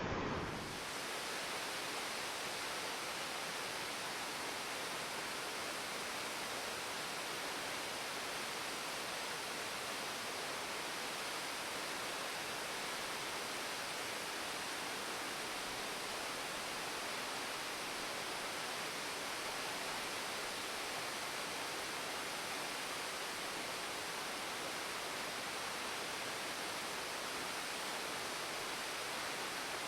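Waterfall rushing: a steady, even noise that does not change.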